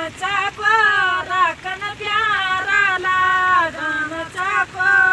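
Women singing a Garhwali folk song unaccompanied, in long held notes with wavering, bending pitch and short breaks between phrases.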